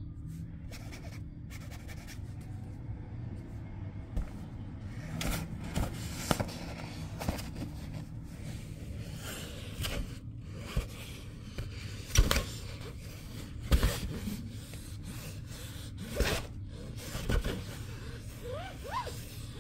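Scraping and rustling on the thin nylon fabric of a pop-up play cube: a finger scratching the outside while kittens paw at it from within, in irregular strokes with a few sharper scrapes in the second half.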